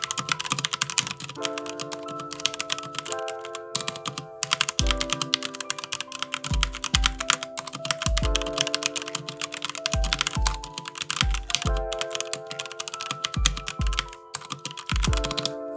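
Continuous fast typing on a Keychron K2 Hot-Swappable mechanical keyboard (aluminium frame, Gateron Red linear switches), a dense, quick patter of keystrokes. Background music with sustained chords plays under it, and a kick-drum beat comes in about five seconds in.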